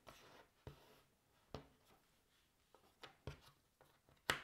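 Cardboard jigsaw puzzle pieces being handled and set down on a wooden table: a few soft taps with light rustling between them, the loudest tap near the end.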